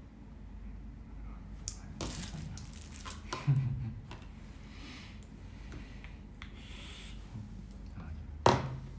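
Rustling and handling noises from small objects being fiddled with at a desk. A short hummed vocal sound comes about three and a half seconds in, and a sharp cough, the loudest sound, comes near the end.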